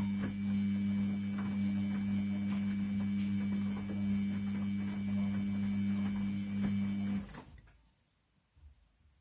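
Washing machine running with a steady motor hum and faint knocks from the drum, cutting out about seven seconds in.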